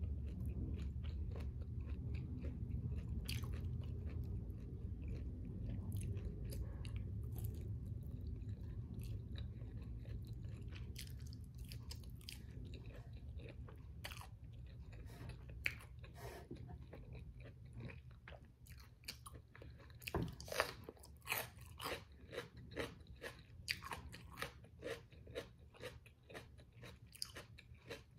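A person chewing fried food up close to the microphone. At first the chewing is low and muffled. About two-thirds of the way in it turns to sharp crunches, about two a second.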